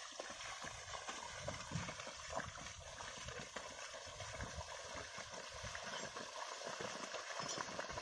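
A pair of bullocks tramping through flooded paddy mud, their hooves squelching and splashing in irregular soft thuds as they drag a plough that the farmer rides, with water sloshing around it.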